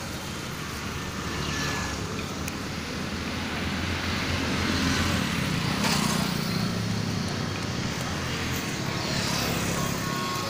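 Street traffic noise: a steady low engine rumble that swells through the middle and eases off near the end.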